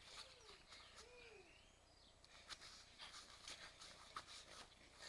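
Faint sounds of play on a grass lawn: two short rising-and-falling calls in the first second and a half, then light scuffing steps and small clicks on the grass from about halfway on.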